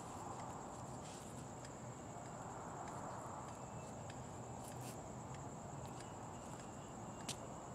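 Crickets chirping in a steady high trill, with a few faint sharp taps, the clearest near the end.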